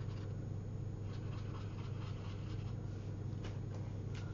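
Wet brush scrubbing faintly across watercolour paper, working water into dried marker swatches to see whether they reactivate. A steady low electrical hum sits underneath, and a couple of light clicks come near the end.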